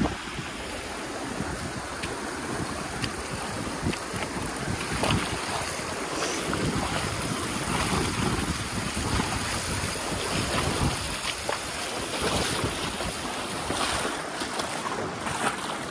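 A shallow mountain creek running over rocks, a steady rushing hiss, with wind buffeting the microphone. Short clicks and knocks come in near the end.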